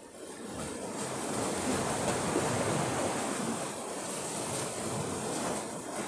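Sea surf: a wave breaking and washing in, a rushing hiss that swells over about a second and fades away near the end.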